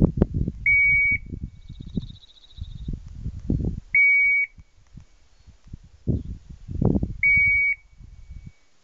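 A setter's beeper collar in point mode, sounding a short, high, steady beep three times, about every three seconds: the signal that the dog is holding a point. Low rumbling noise on the microphone runs underneath.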